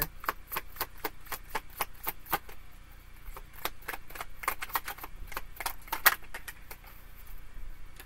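A deck of tarot cards being shuffled by hand: a quick, irregular run of card snaps and clicks, several a second, with one sharper snap about six seconds in.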